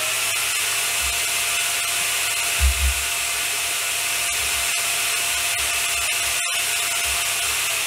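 Small 10WS7040 CPAP blower in a 3D-printed soundproofing enclosure, running flat out. It makes a steady airy whoosh with a steady whine over it.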